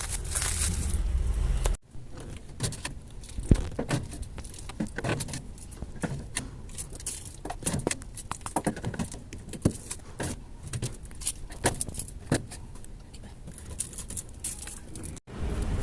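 Items being set into a store fridge while restocking: a string of light clinks and knocks at uneven spacing.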